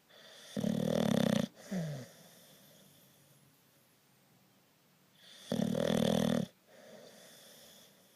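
Snoring: two loud snores about five seconds apart, each lasting about a second, the first trailing off in a short falling tone.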